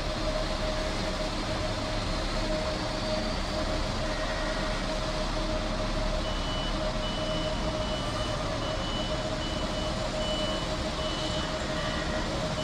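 Articulated bus's engine running steadily with a constant hum as it manoeuvres; about six seconds in, its reversing alarm starts, one high beep roughly every second.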